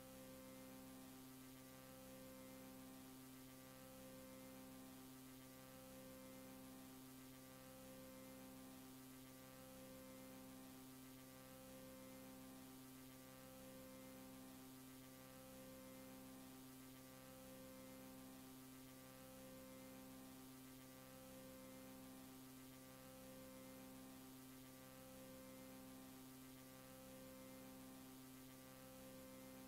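Near silence: a very faint steady hum made of several tones, some pulsing on and off about every two seconds.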